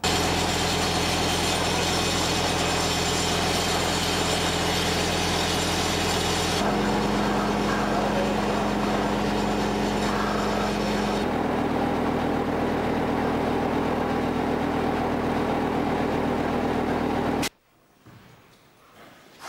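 Water spraying hard from a fire truck's hose to make artificial rain, over a steady engine hum. The engine note shifts to a different pitch twice, and everything cuts off suddenly near the end.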